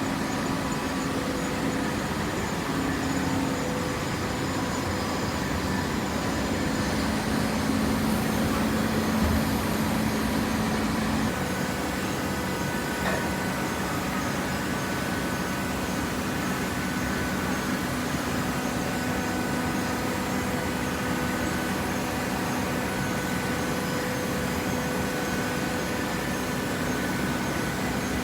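Hydraulic waste paper baler's motor and pump running with a steady hum, its tone shifting once about eleven seconds in.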